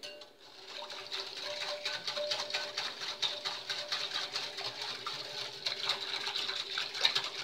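Metal wire whisk beating hot water and gelatin powder in a glass bowl to dissolve it, the tines ticking rapidly and steadily against the glass, starting about half a second in.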